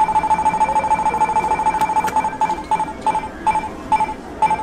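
Electronic beeper of a coin-operated candy vending game machine, running while its number display spins after the START button is pressed. It begins as rapid, nearly continuous beeping at one pitch, then breaks into separate beeps that come further and further apart as the spin slows down. A few sharp clicks come near the start and about two seconds in.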